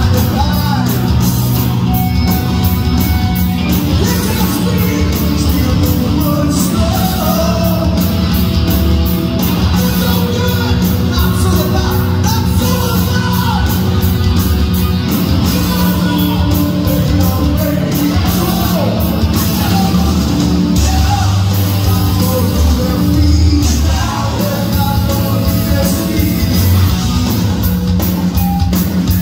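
Hard-rock band playing live: distorted electric guitars through Marshall amplifiers, bass guitar and a drum kit.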